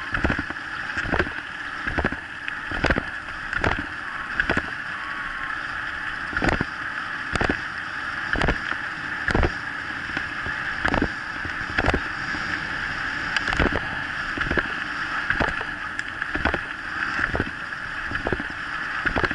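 Dog scooter rolling fast along a paved track, a steady rushing hiss of tyre and wind noise, with a short sharp knock about once a second.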